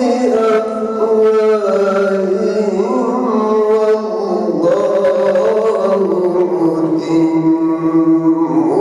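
A male qari reciting the Quran in melodic tajweed style, unaccompanied: long drawn-out notes joined by sliding, ornamented turns of pitch, with one long held note near the end.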